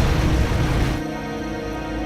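Ominous documentary score: a loud rushing noise cuts off abruptly about a second in, leaving sustained, low, dark music tones.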